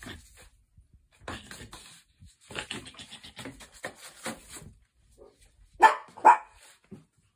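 Griffon puppy giving two short, sharp yaps close together about six seconds in, after a few seconds of quieter scuffling and clicking as it runs about.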